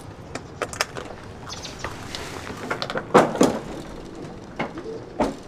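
A front door being unlocked and opened: keys clinking, scattered clicks and knocks of the lock and handle, and a louder scrape about three seconds in as the door swings open.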